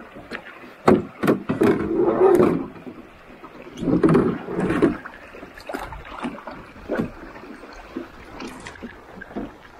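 Knocks, clicks and scrapes of a paddle and the hull of a Placid Boatworks Oseetah pack canoe as a paddler grips the gunwales and climbs into the wet, muddy boat. Two longer, rough, low sounds come around two seconds and four seconds in.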